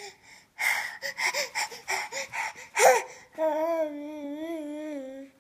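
A baby of about ten months making a quick run of short fake coughs, ending in one louder cough with a squeak, then a long, wavering 'aah' held for about two seconds.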